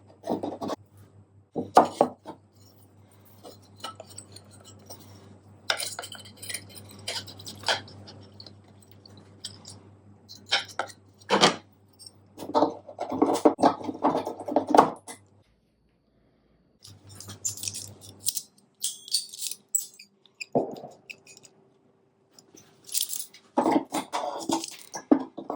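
Metal clinks, taps and rattles from nails and hand tools being handled on a workbench, in scattered irregular bursts, over a faint steady hum that stops a little past halfway.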